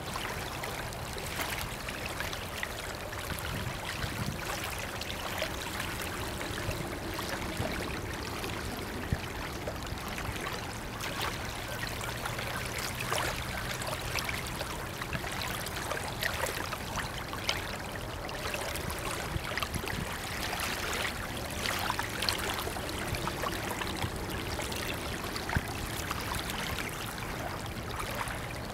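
River water lapping and splashing at the shore in small irregular splashes, with a faint steady low hum underneath.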